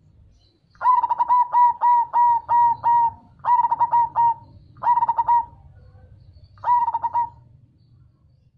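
Zebra dove (perkutut) cooing: rapid runs of short staccato coo notes on a steady pitch. A long run of about seven notes comes first, then three shorter runs.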